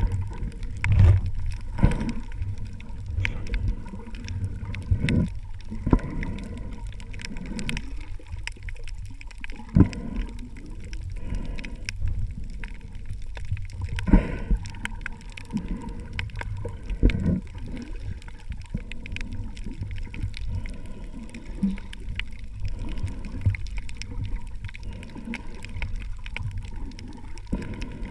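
Underwater sound through an action camera's submerged housing: muffled water movement and irregular low knocks as the diver swims and handles the spear, over a steady scatter of fine crackling clicks.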